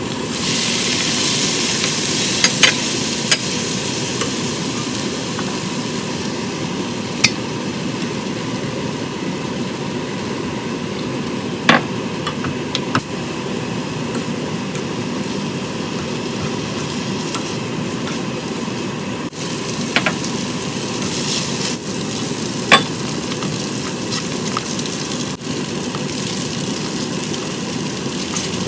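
Food sizzling steadily as it is stir-fried in a pan, with a few sharp clinks of the cooking utensil against the pan.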